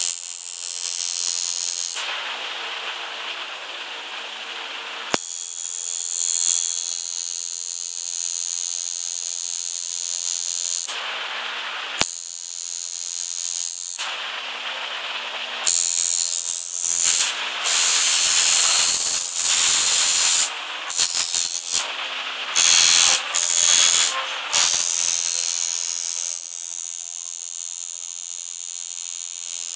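Coil tattoo machine buzzing while inking skin, stopping and starting several times, with a run of short on-off bursts in the middle.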